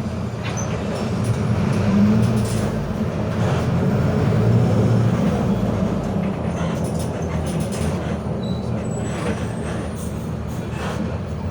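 Mercedes-Benz OF 1721 BlueTec 5 bus running on the road: the OM924LA 4.8-litre four-cylinder diesel pulls with a deep, steady rumble, with the differential growling. It grows louder about two seconds in and eases off after about six seconds.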